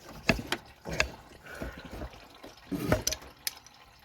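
Coolant dripping into a drain pan under a car, with a few irregular sharp clicks and knocks of tools on metal.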